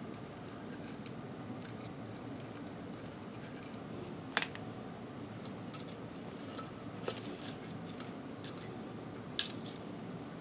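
Small metal machine parts clicking and clinking as they are handled and fitted back together, four sharp clicks spread over the stretch, over a steady low background hum.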